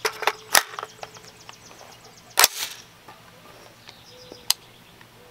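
16-inch AR-15-style rifle being readied to fire: a few sharp metallic clicks and clacks from its magazine and action, the loudest about two and a half seconds in, then a single sharp click near the end.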